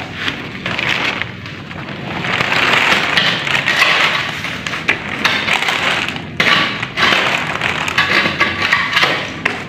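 Crackling and rustling as rotted coffin lining, stiff cloth and plastic sheeting are pulled and handled by hand, with a few sharp knocks among the debris.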